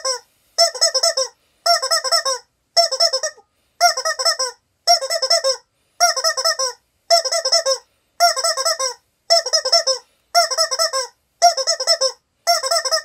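Rubber chicken toy squeaking in quick runs of several squeaks, about one run a second, with silence in between.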